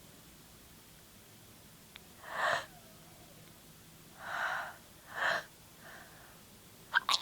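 A woman winding up to a sneeze: three short, sharp, noisy in-breaths and a fainter fourth, then a few quick catches of breath, and a loud sneeze bursting out at the very end.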